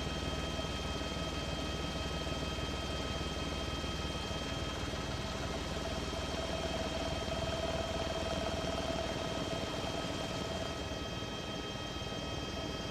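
Helicopter noise: a steady engine and rotor drone with constant high whining tones over it.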